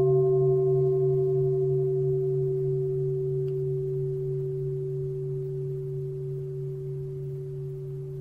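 Buddhist bowl bell ringing on after a single strike and slowly dying away: a low wavering hum under a clear steady tone, with fainter higher overtones.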